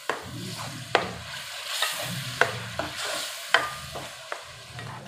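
Ground onion-tomato masala sizzling as it fries in ghee in a metal kadhai, stirred with a metal ladle that scrapes and clinks against the pan about once a second. This is the masala being bhuna (sautéed) until it cooks down.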